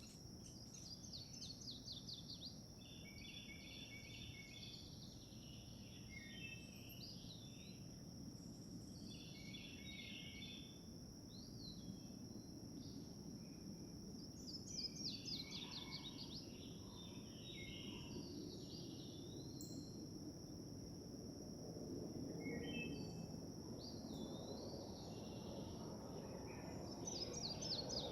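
Several birds singing and chirping. A fast falling run of notes comes three times, near the start, in the middle and near the end. Steady high whines and a low rumble sit beneath them.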